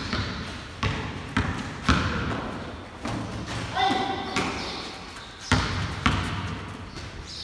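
Basketball bouncing on a concrete floor: sharp, irregular bounces, each ringing out with a long echo in the large, hard-walled bay. A voice calls out around the middle.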